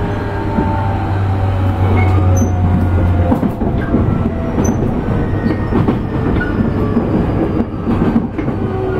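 Running noise inside a JR East E531 series electric train in motion: wheels rumbling on the rails with scattered rail-joint clicks. A steady low hum stops about three seconds in, and a faint falling whine comes near the end.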